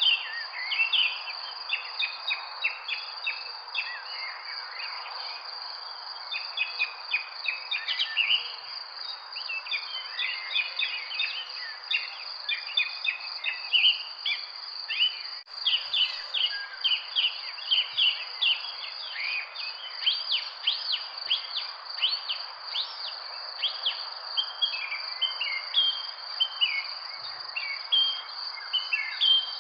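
Many birds chirping and singing, a dense run of short calls, over a continuous high-pitched steady whine and a soft background hiss. The sound drops out for an instant about fifteen seconds in.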